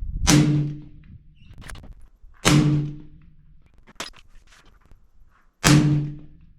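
Three suppressed rifle shots from a 6.5 Creedmoor rifle fitted with a Rugged Alaskan suppressor, about two to three seconds apart, each with a short low ring as it fades. A quieter, sharper crack comes about four seconds in.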